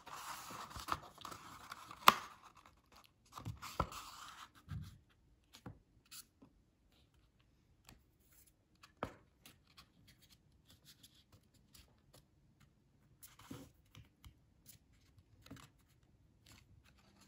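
Sheet of watercolour paper being folded and creased flat by hand: a rustling rub of fingers on paper for the first few seconds with a sharp crack about two seconds in, then a few crackles and scattered faint taps and rubs.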